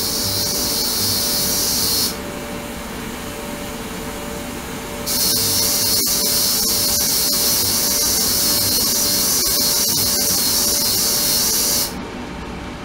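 Ultrasonic cleaning tank running: a loud, high hiss from the cavitating water that cuts out about two seconds in, comes back about three seconds later, and stops again near the end, over a steady hum.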